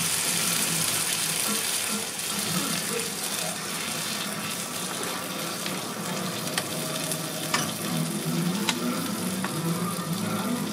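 Food frying in hot oil with a steady sizzle, and a few sharp clicks in the second half.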